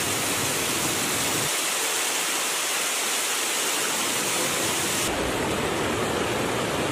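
Steady rushing of flowing stream water. The deep part of the sound drops away about a second and a half in and returns about five seconds in.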